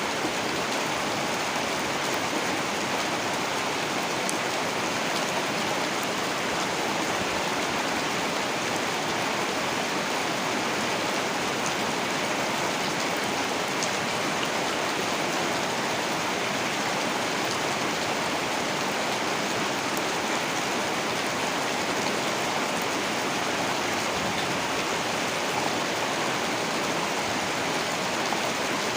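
Heavy rain falling steadily, a dense even hiss with scattered drop patter.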